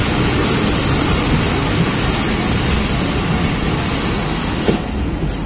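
Steady running noise of a moving passenger train heard from inside the carriage: wheels on the rails and rushing air, easing slightly near the end.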